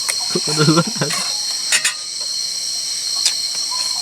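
A dense chorus of night insects, crickets among them, with a steady high-pitched trill. A brief low voice sounds about half a second in, and a few sharp clicks fall around two and three seconds in.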